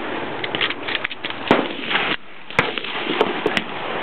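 Several 9mm pistol shots from a Glock 17 and a Llama fired together, two-handed. They come unevenly, with one about a second and a half in, one a second later and two almost together near the end, over a steady rushing background.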